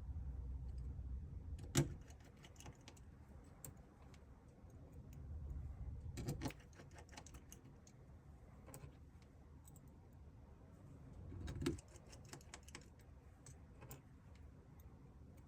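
Small clicks and taps of hand tools and smartphone parts being handled during reassembly, with three sharper clicks about two, six and a half, and twelve seconds in, each preceded by a low handling rumble.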